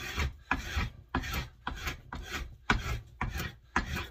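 Spokeshave shaving along a wooden axe handle in quick repeated strokes, about two a second, cutting off hardened excess carpenter's glue along with thin curls of wood.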